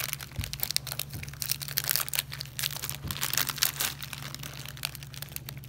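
Foil-lined biscuit wrapper crinkling in quick, irregular rustles as hands pull it open and shift the cookies inside.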